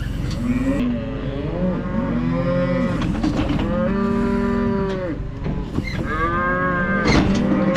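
Several cattle bawling at once, long overlapping moos one after another, over a steady low rumble, with a couple of sharp knocks about three seconds in and near the end.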